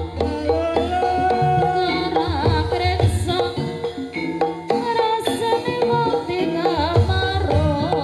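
Live Javanese gamelan playing a gending: bonang kettle-gong chimes and metallophone notes over a drum beat, with a singer's wavering vocal line on top.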